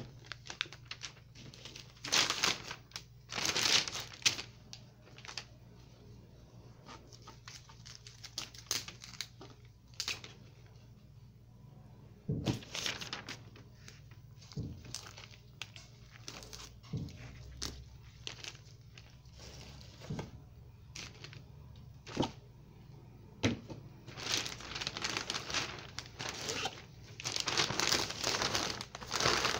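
Newspaper rustling and crinkling as a cauliflower is handled and trimmed on it, with scattered sharp crackles. From about four-fifths of the way through, denser, steadier crinkling as the newspaper is folded and wrapped around the cauliflower.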